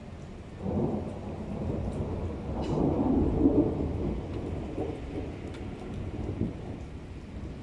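Rolling thunder: a low rumble that swells about a second in, is loudest around three seconds, then slowly fades.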